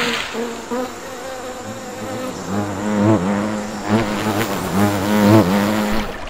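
Buzzing of a flying insect in several wavering passes, starting about two and a half seconds in.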